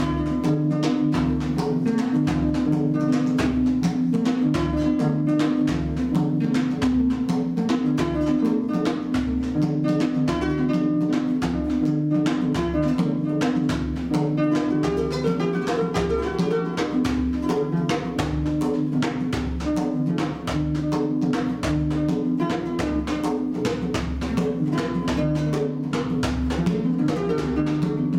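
Djembe hand drum played in a steady rhythm, with regular deep bass strokes and sharp slaps, together with a plucked West African calabash harp-lute playing a repeating pattern of notes.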